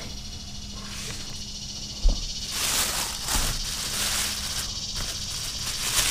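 Steady high chirring of insects, with a knock about two seconds in followed by a couple of seconds of rustling handling noise.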